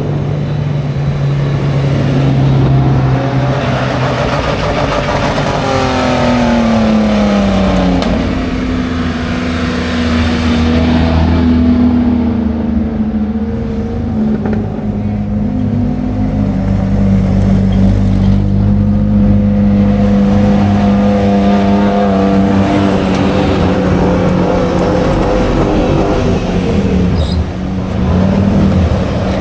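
Off-road vehicle engines running loud and revving, the engine note sliding down about six to eight seconds in, then holding fairly steady.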